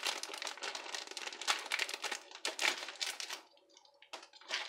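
Thin clear plastic bag crinkling as it is cut open with scissors: dense rustling for about three and a half seconds, then a few lighter crackles.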